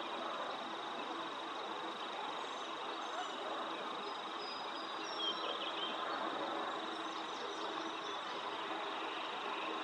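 Outdoor ambience: a steady rushing background noise with a thin, steady high whine like an insect. A few faint, high bird chirps come a few seconds in.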